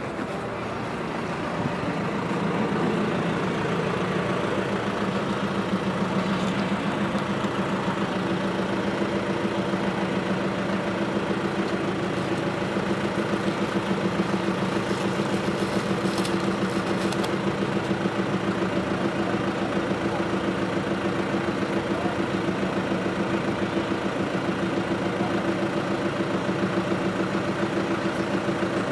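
Truck engine idling steadily, growing louder over the first two seconds and then holding an even drone.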